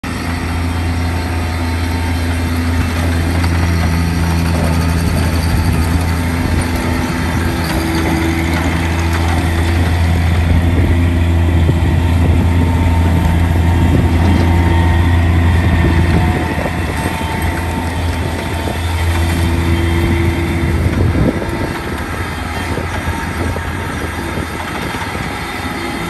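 Bobcat MT85 stand-on mini track loader's diesel engine running with a steady low hum while the machine is driven about. It grows louder in the middle and drops back a little about two-thirds of the way through.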